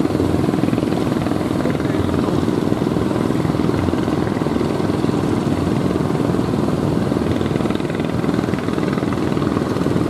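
Engines of several wooden outrigger fishing boats running at speed under way, a loud steady drone.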